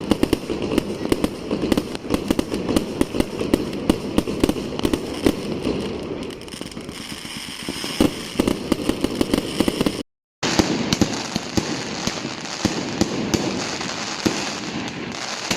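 Fireworks going off in a dense barrage of rapid crackling bangs, many cracks a second. It cuts to silence for a moment about ten seconds in, then another stretch of similar crackling follows.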